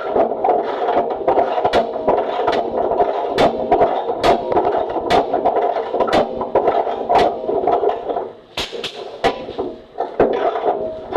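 Wrench at work on the last bolt holding a Willys CJ3B frame cross member: irregular sharp metal clicks and knocks, one or two a second, over a steady hum that dips about eight seconds in.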